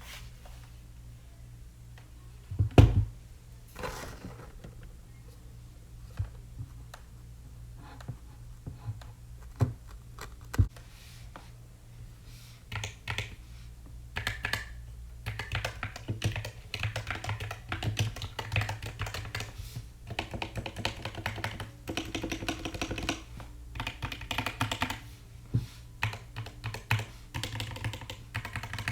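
Typing on an EPOMAKER SK64 mechanical keyboard with Gateron optical black linear switches: a loud thump and scattered single key clicks at first, then steady, fast typing from about halfway on.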